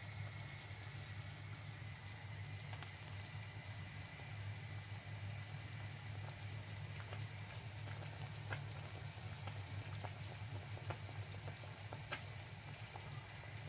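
Chicken and vegetable broth for couscous boiling in a pot: steady bubbling with scattered small pops, over a steady low hum.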